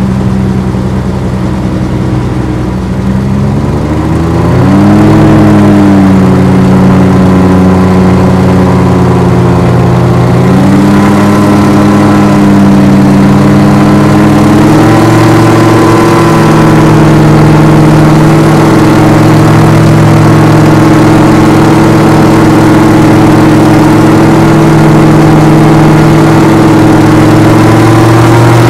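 RAF 2000 GTX SE gyroplane's engine and propeller running, heard from inside the open cockpit with a rush of air. Its pitch rises about four seconds in, steps up again twice, around ten and fifteen seconds in, then holds steady.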